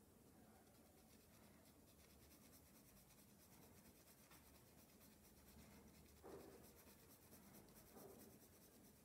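Faint scratching of a dark coloured pencil drawn across paper in short shading strokes, one slightly louder stroke about six seconds in.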